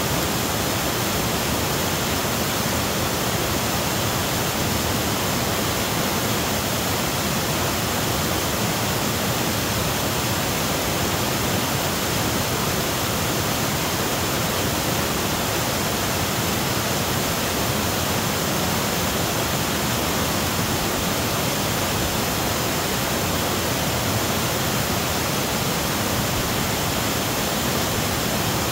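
Waterfall: whitewater cascading over boulders into a pool, a loud, steady rush with no let-up.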